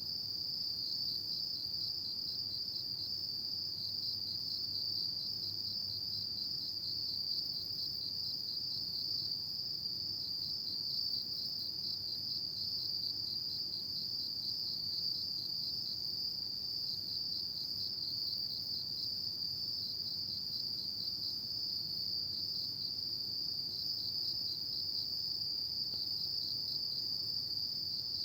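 Autumn crickets chirping in one continuous high-pitched trill with a fine, rapid pulse, unbroken throughout.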